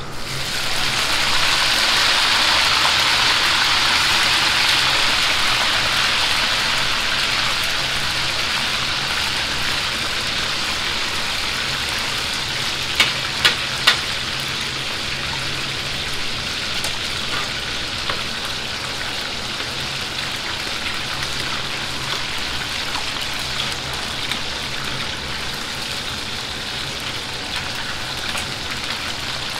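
Battered chicken pieces deep-frying in a wok of hot oil for their second fry: a loud sizzle as they go in, easing off gradually as the oil settles. Three quick taps a little before the middle.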